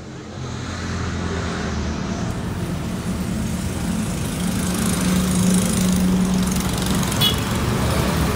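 Steady outdoor traffic noise with a low engine hum running under it, and one short click about seven seconds in.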